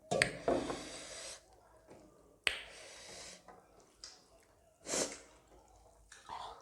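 A person at a meal sniffing and drawing breath sharply through the nose and mouth, in several short bursts a second or two apart.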